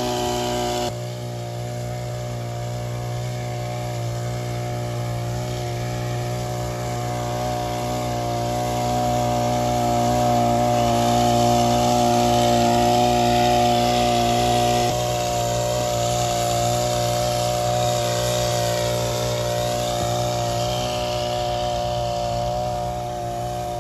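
Engine of a motorized crop-sprayer pump running steadily at constant speed while spraying weed killer on alfalfa. There is a hiss over the engine, and one of its tones drops out about fifteen seconds in.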